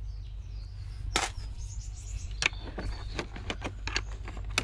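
Screwdriver unscrewing screws from the plastic housing of a Dyson DC41 cleaner head: small scattered clicks and ticks of tool on screw and plastic, coming faster in the second half, over a steady low rumble.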